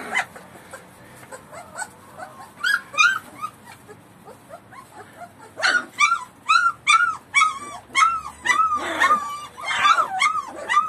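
A litter of puppies whining and yelping in short, high cries that rise and fall in pitch. There are a couple at the start and two about three seconds in, then a quick run of them, about two or three a second, through the second half.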